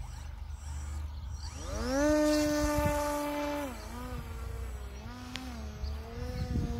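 Home-built radio-controlled model aeroplane's motor and propeller buzzing. About a second and a half in it spins up with a quickly rising pitch, holds steady for a couple of seconds, then the pitch drops and wavers as the throttle is varied in flight.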